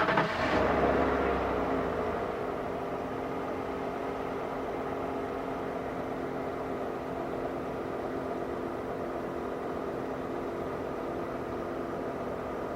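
Car engine whose speed falls over the first couple of seconds, then idles steadily.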